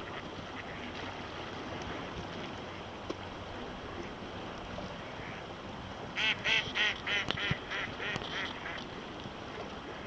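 Mallard quacking: a run of about ten quick quacks, about four a second, loudest at the start and fading toward the end, typical of a mallard hen's call. A steady hiss lies underneath.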